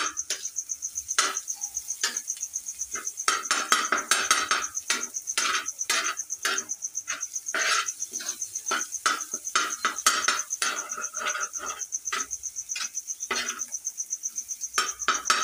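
Metal spatula clattering and scraping on a tawa griddle as the egg tikki mixture is chopped and stirred: rapid, sharp knocks, about three to four a second. A steady high-pitched chirring runs behind it.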